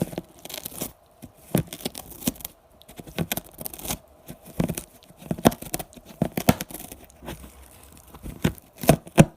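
A run of irregular crinkling and tearing noises: short scratchy rustles, one after another.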